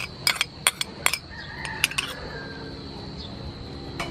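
A run of sharp clinks as a small sauce bowl is knocked and scraped against a frying pan, mostly in the first two seconds, over prawns sizzling in oil.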